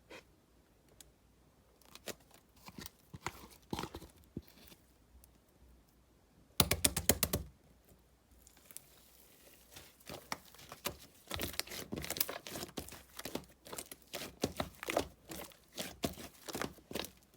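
Hands working modelling clay and tools on a table: scattered clicks and taps, a loud quick rattle for about a second near the middle, then busy clicking and crinkling handling sounds.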